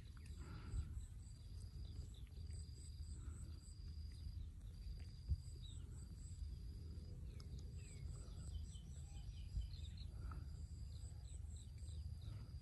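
Outdoor ambience with an insect trilling in an even rhythm, about one high trill a second, and short bird chirps partway through. Under it runs a low rumble, with a few light knocks.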